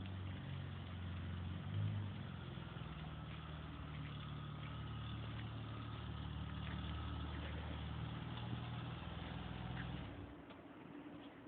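BMW car engine running at a steady idle, with a brief swell about two seconds in; the engine sound drops away near the end.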